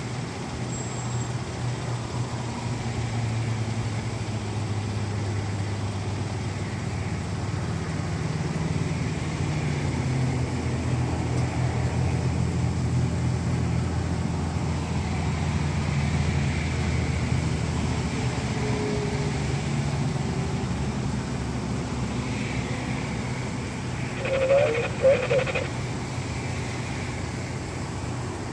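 Heavy-haul semi truck's diesel engine pulling an oversize load at crawling speed, a steady low rumble that shifts in pitch as it works through the turn. About 24 seconds in, a short higher-pitched sound cuts in briefly.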